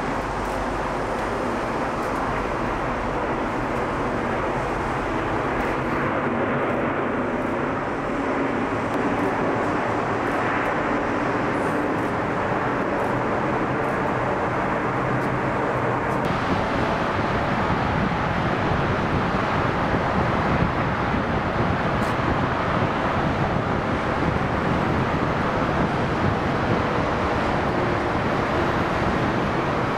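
Boeing 747 jet engines running, a steady broad noise with no distinct tones. The hiss changes abruptly about 16 seconds in.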